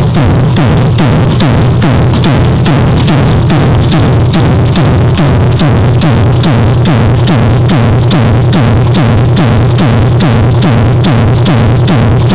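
Electronic dance music with a fast, steady beat and heavy bass, played very loud through a car sound system.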